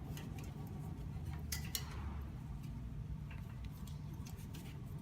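PPA-coated Band-Fast steel band being fed through the slots of a cable ladder: light metallic scraping and clicking, with a pair of sharper clicks about a second and a half in.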